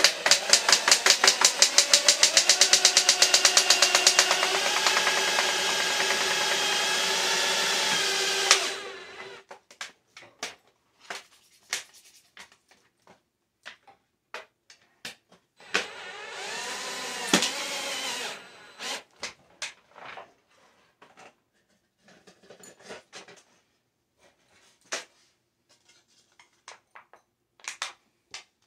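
Power drill driving screws through thin tin sheet metal: a long run of about nine seconds with the motor's pitch climbing in steps, then a shorter run about two-thirds of the way in that speeds up and slows down. Light clicks and knocks of handling fall between the runs.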